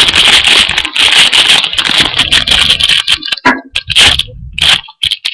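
Foil booster-pack wrapper crinkling and crackling loudly close to the microphone, a dense run of rapid crackles that breaks into shorter separate crinkles near the end.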